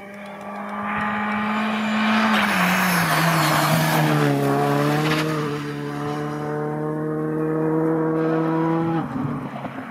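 Škoda Fabia Rally2 Evo rally car's 1.6-litre turbocharged four-cylinder engine at high revs as it approaches and passes close by. Its pitch drops with a rush of noise as it goes past, about three seconds in. It then holds steady revs pulling away, and eases off near the end.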